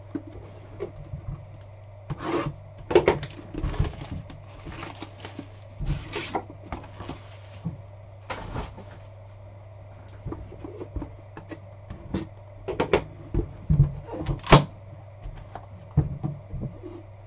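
A trading card hobby box being opened and handled: scattered knocks, clicks and rustling scrapes of cardboard and packaging, in two busy spells, over a steady low hum.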